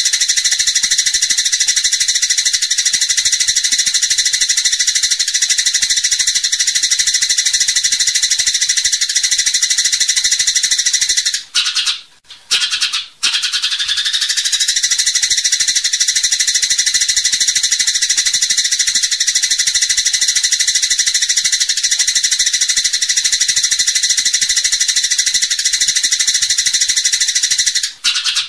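Dense, continuous high-pitched chattering and trilling of small songbirds, a looped birdsong training track. It drops out briefly about twelve seconds in and then resumes.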